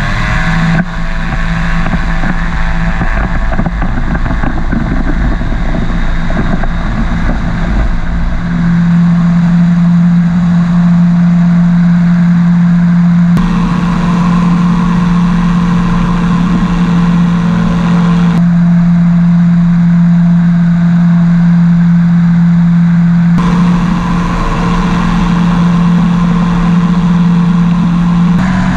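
P&M Quik GT450 flexwing microlight's Rotax 912 engine and pusher propeller running at take-off and climb power: a loud, steady drone heard from on board, with wind rushing over the microphone. The pitch settles after a quick rise at the start, and the tone shifts abruptly a few times.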